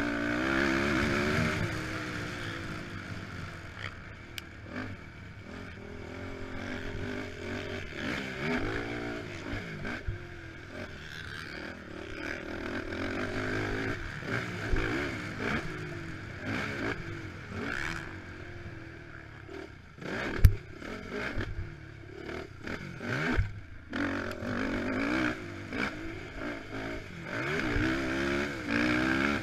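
Honda TRX450R quad's single-cylinder four-stroke engine revving up and down repeatedly as it is ridden hard around a dirt track. A sharp thump about two-thirds of the way through is the loudest sound, with a few smaller knocks around it.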